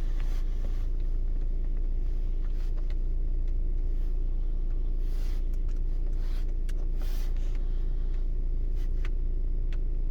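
Volkswagen Tiguan's engine idling steadily, a low even rumble, with a few light clicks scattered through it.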